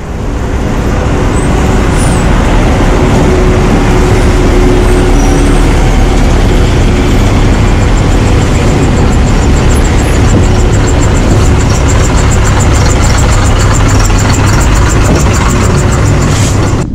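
Diesel engines of road-works machinery, an excavator and a wheel loader, running close by amid street traffic: a loud steady rumble that fades in at the start.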